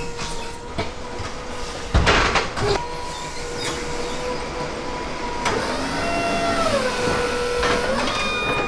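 Forklift at work: a steady mechanical whine that rises in pitch about halfway through and drops back near the end, with a few loud clunks about two seconds in.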